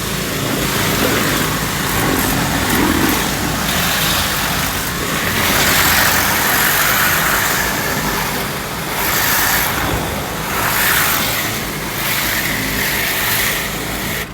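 High-pressure washer spraying plain water onto the top of an aluminium canopy to blast off debris, a loud hiss that swells and fades as the jet sweeps across the surface, over a steady low engine hum. The spray cuts off at the end.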